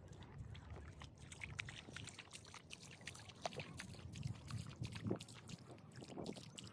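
Water trickling over wet tidal mudflat, with many small irregular crackling clicks and a faint low murmur.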